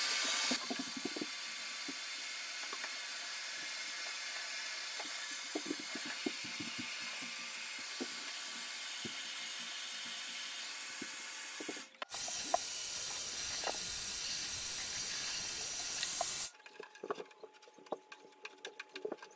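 Handheld hot-air heat gun blowing a steady rushing hiss, heating the end of a plastic downspout to soften it for bending, with light taps of the plastic being handled. About three seconds before the end the heat gun stops, leaving only faint clicks of handling and hand tools.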